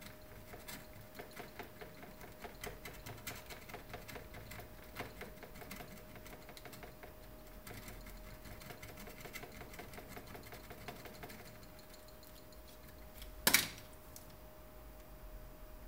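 A hand tool scratching rapidly at a circuit board, scraping the solder mask off the copper so a MOSFET's drain can be soldered down. The scratching is busiest in the first ten seconds or so, and there is a single louder knock about two seconds before the end.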